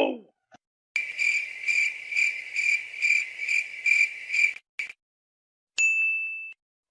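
Stock crickets-chirping sound effect, the kind used to mark an awkward silence: a high, even chirping that pulses about twice a second for nearly four seconds and then stops. A short high tone sounds near the end and fades quickly.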